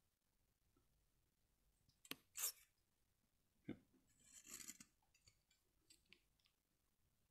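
Near silence broken by a few clicks and brief rustles as a smartphone is handled and refitted in its mount.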